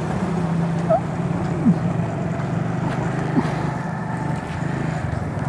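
Honda CD 70's small single-cylinder four-stroke engine running steadily at low speed as the motorcycle rides slowly through a left turn.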